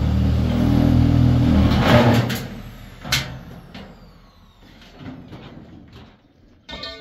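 A motor vehicle engine running close by. It is loudest for the first two seconds or so, then fades away over the following seconds. A few sharp clicks and a short rattle come near the end.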